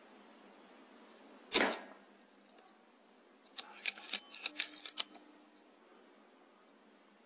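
A single sharp shot from a .177 Air Arms S510 Ultimate Sporter PCP air rifle about one and a half seconds in, with a brief ring. About two seconds later comes a quick run of small scratching clicks.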